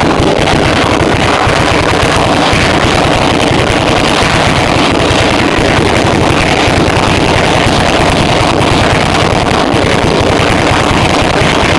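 Homemade U-shaped valveless pulse jet ("explosive resonator" engine) running loudly and steadily, its rapid combustion pulses merging into a continuous buzzing roar.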